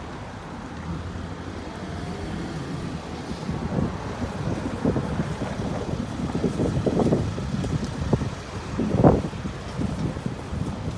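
City street ambience: a steady low rumble of road traffic, with wind gusting over the microphone. The gusts swell loudest about nine seconds in.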